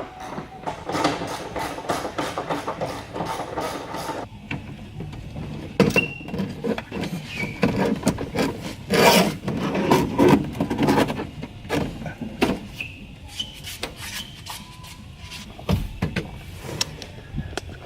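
Hand work taking out a car's driver's seat: a run of rapid clicking for about the first four seconds, then scattered scraping, clicks and knocks of metal and seat parts being worked loose.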